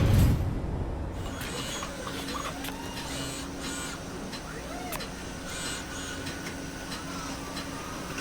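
Recycling robot machinery at work: motor whines rising and falling in pitch as the arms move, over a steady machine hum, with scattered clicks. It opens on a loud hit that dies away over about a second.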